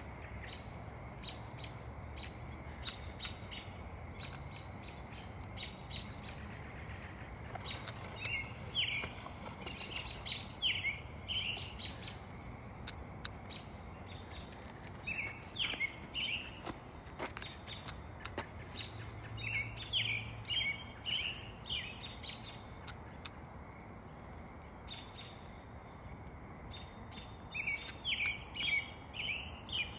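A bird chirping in short runs of quick notes, four times a few seconds apart, with scattered sharp clicks throughout.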